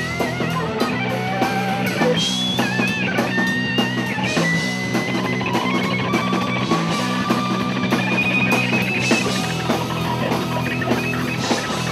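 Rock music: electric guitars and a drum kit playing a steady beat, with a sustained high melody line gliding above.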